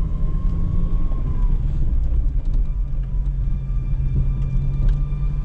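Steady low rumble of a car's engine and tyres on the road, heard from inside the cabin while driving, with a few faint clicks.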